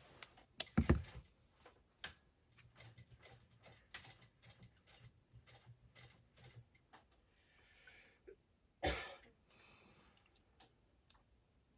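Scattered mouse clicks and keyboard taps at a computer, with two louder knocks, one about a second in and one near the end.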